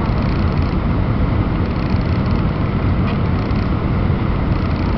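Steady cabin noise inside an Airbus A319 airliner in flight: engine drone and rushing air, a deep, even rumble that stays constant.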